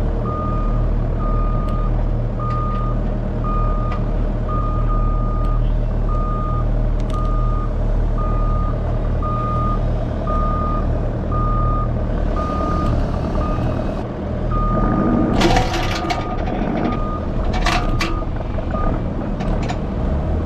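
Heavy equipment backup alarm beeping about once a second over a steadily running engine. The beeping pauses briefly about two-thirds of the way through, and a few loud crunching knocks come near the end.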